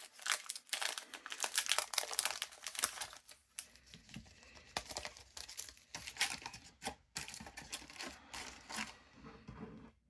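Foil wrapper of a trading-card booster pack crinkling and tearing as it is ripped open and handled. The crinkling is densest for the first few seconds, then thins out to scattered crackles before stopping near the end.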